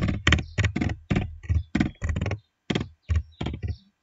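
Computer keyboard typing: a run of about fourteen keystrokes, roughly four a second, that stops shortly before the end.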